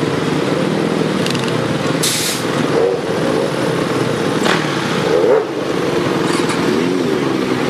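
A vehicle engine running steadily, with a short hiss about two seconds in.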